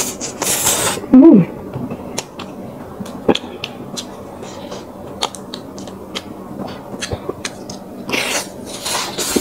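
Close-miked eating sounds: many small chewing and mouth clicks, with two loud breathy rushes of air, one at the start and one near the end, and a short hummed "mm" about a second in.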